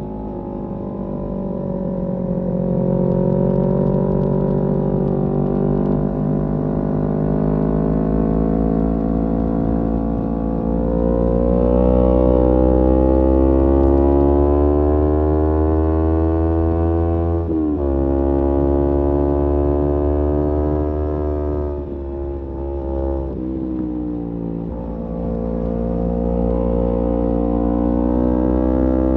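Kawasaki Z250's parallel-twin engine through an aftermarket SeaPro muffler, running under load while riding. Its pitch climbs steadily as the bike gains speed and drops sharply at a gear change about two-thirds of the way through. It changes again a few seconds later, then rises once more.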